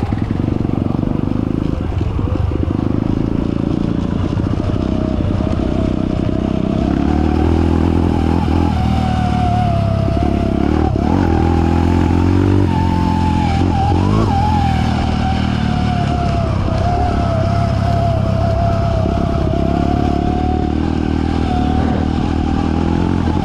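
Trail motorcycle engine running steadily while riding, with a thin whine above it that wanders slowly up and down in pitch.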